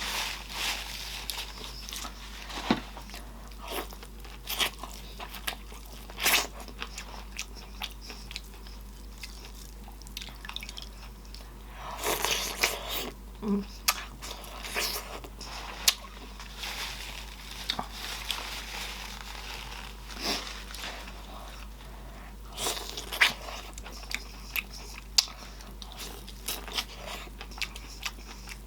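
A person eating a sausage boil in butter sauce: repeated bites and chewing, with wet smacking mouth sounds and scattered sharp clicks.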